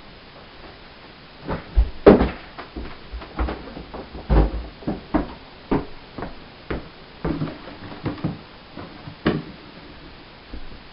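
Irregular knocks, thuds and clatter of objects being handled and moved as someone rummages and moves about a cluttered room. They start about a second and a half in, and the loudest come about two seconds in and just after four seconds.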